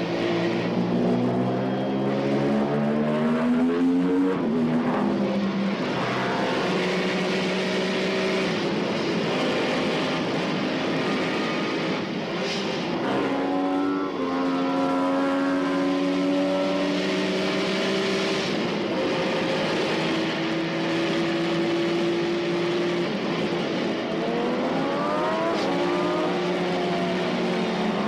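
Vehicle engine running hard at speed, its pitch climbing over the first few seconds, dropping and picking up again at gear changes, then holding steady. Near the end a second engine note sweeps up and down.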